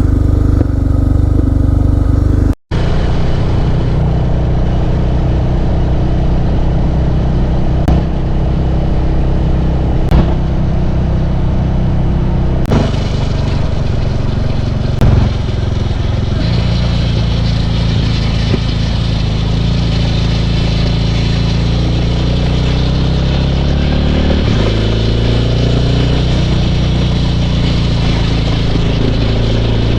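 Suzuki DR650's single-cylinder four-stroke engine running steadily under way, with wind and road noise. The sound cuts out for an instant about two and a half seconds in, and near twenty-five seconds the engine note drops and then climbs again.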